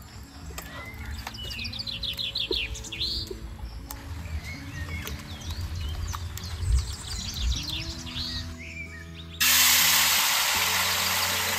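Small birds chirping and trilling over soft background music of held low notes. About nine seconds in, a loud, steady rush of water noise cuts in abruptly.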